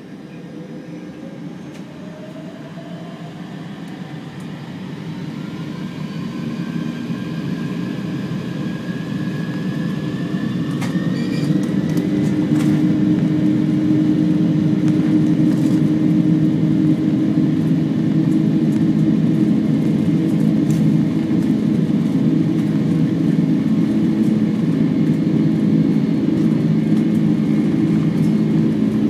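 Boeing 747-200's four turbofan engines spooling up to takeoff power, heard inside the cabin: a rising whine over the first twelve seconds or so as the noise builds. Then a steady loud rumble as the jet accelerates down the runway, with a few clicks and rattles.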